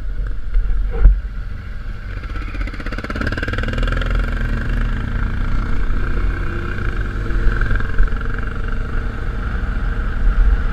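BMW R1200GS Adventure's boxer-twin engine running steadily as the motorcycle rides along a dirt track, heard from a camera mounted on the bike, with a low rumble of wind and road noise. A sharp thump about a second in.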